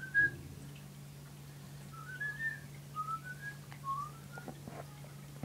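Soft whistling in short rising notes, in four or five brief phrases with pauses between, over a steady low hum.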